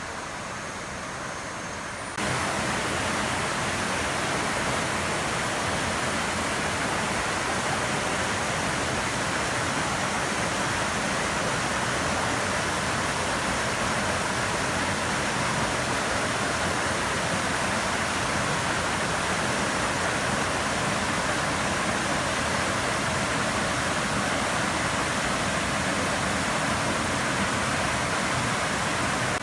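Waterfall: a steady rush of falling water that steps up louder about two seconds in.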